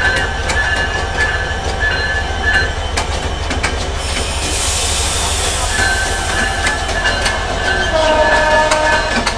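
Passenger train rolling slowly over the rails with the wheels squealing in repeated high-pitched bursts over a steady rumble, as the train comes into a station. A burst of hiss comes about four seconds in, and a lower-pitched squeal near the end.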